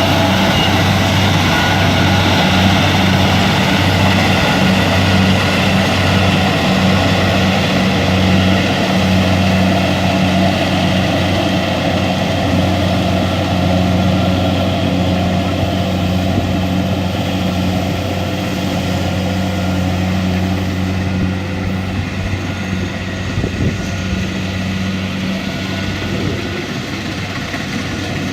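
Kubota DC-70 combine harvester's diesel engine running steadily with a constant hum while harvesting rice, growing slightly quieter over the last third.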